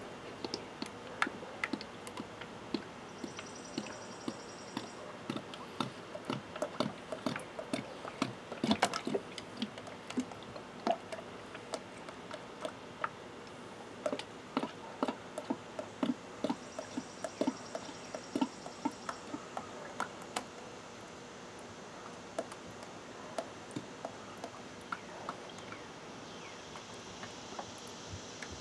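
Motor oil pouring from a 5-quart jug down a long funnel into the engine's filler, glugging and gurgling irregularly as air gulps back into the jug.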